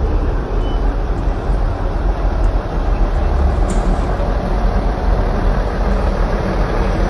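A bus engine running as the bus drives slowly past at close range: a steady, loud low rumble.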